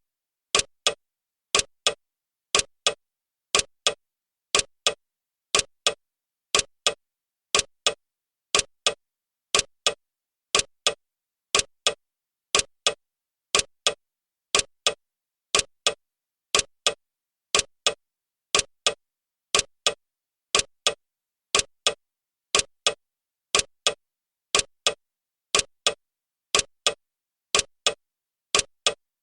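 Clock ticking sound of a countdown timer: steady sharp ticks, about two a second.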